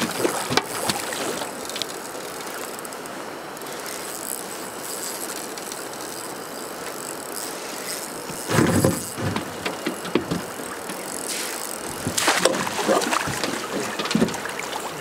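Steady rush of river water and wind. Water splashes beside the boat about nine seconds in and again around twelve seconds, as a hooked steelhead is brought to the landing net.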